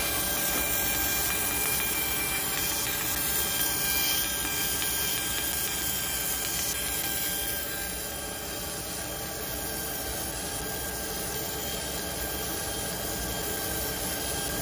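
Laser machine running a cut: a steady machine hiss and hum with a few faint high steady tones. It drops slightly in level about halfway through.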